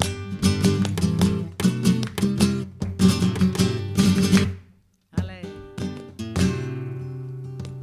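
Flamenco guitar playing an alegrías interlude between sung verses: quick plucked runs and strums. It breaks off briefly just under five seconds in, then starts again with a strummed chord.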